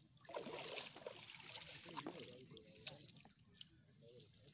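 Wet cast net being pulled and shaken out by hand: faint rustling of the mesh, small clicks and water trickling off the net, over a steady high hiss. Faint distant voices come in briefly about two seconds in and again near the end.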